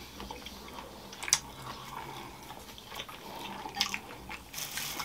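Quiet mouth-close chewing with a few sharp crunches of fried finger crisps (dhumro), one about a second in and more near the end, with a brief rustle of the crisps shortly before the end.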